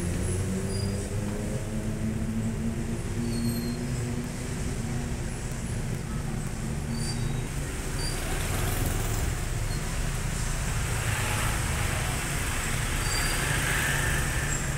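Road traffic noise: a steady low rumble, with a passing engine's hum in the first five seconds or so that fades away. A brighter hiss rises from about eight seconds in.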